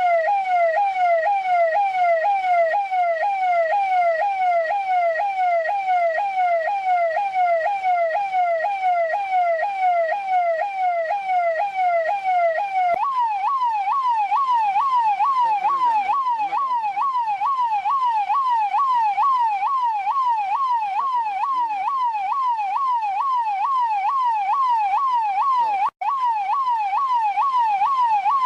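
Indian police car siren in a fast electronic yelp, its pitch sweeping up and down about twice a second. About halfway through it jumps to a higher pitch and carries on at the same pace, with a split-second gap near the end.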